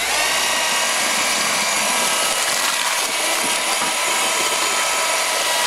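Electric drill with a paddle mixer running steadily at speed, churning a stiff hydraulic lime mortar in a plastic bucket: a loud, even motor whine over gritty churning.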